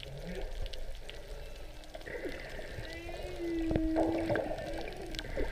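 Humpback whale song heard underwater: a series of moans and higher squeaking glides, with a steady low moan about three seconds in, held for about a second. Faint scattered clicks run beneath it.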